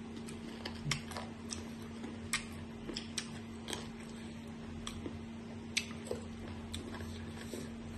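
Mouth sounds of people eating crisp green mango slices in chili sauce: irregular sharp crunching clicks from chewing, with a steady low hum underneath.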